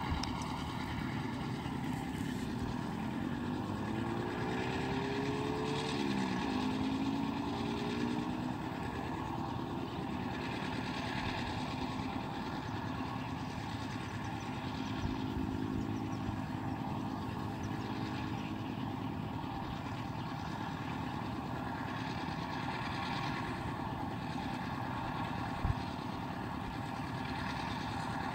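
A motor engine running steadily in the background; its pitch rises for a couple of seconds, then drops sharply about six seconds in, and a fainter pitched stretch comes again midway. A single short knock near the end.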